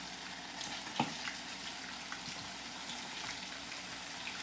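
Food frying in hot oil in a pot: a steady sizzle with scattered small crackles and pops. A single sharp knock sounds about a second in.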